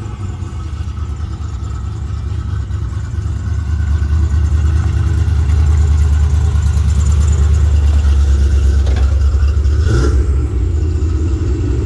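Car engine running with a deep, steady rumble, getting louder about four seconds in.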